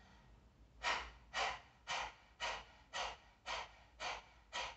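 A woman doing dog panting breath, a yogic breathing exercise: rapid open-mouthed panting with her tongue stuck far out, a regular string of short breathy puffs at about two a second, starting about a second in.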